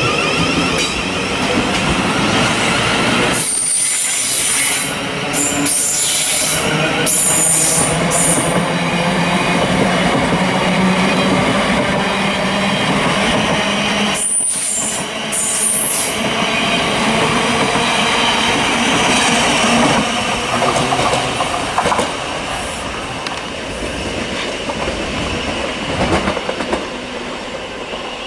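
Thameslink Class 700 electric multiple units running through the station: a continuous rumble of wheels on rail, with high-pitched wheel squeals a few seconds in and again around the middle.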